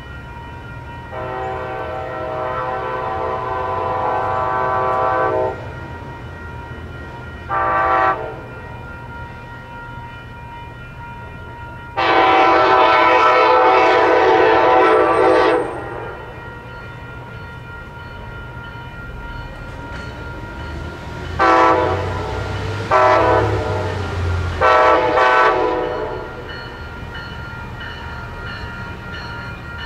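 Diesel locomotive horn sounding a chord in repeated blasts: a long one, a short one and another long one, then three shorter blasts close together about 21 to 26 seconds in, over the steady rumble of a train.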